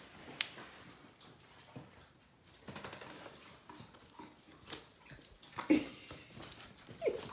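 Light scuffs and taps on a floor, then two short yips from a puppy near the end, the second falling in pitch.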